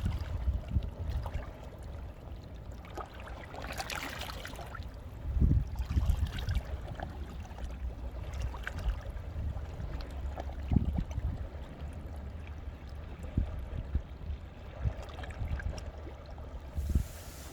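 Sea waves washing in among shoreline rocks and draining back with trickling and gurgling, over a low, uneven rumble. A louder, hissing wash comes about four seconds in, and another near the end.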